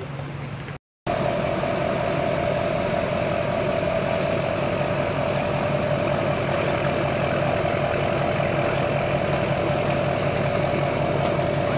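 An engine idling steadily, after a brief dropout about a second in.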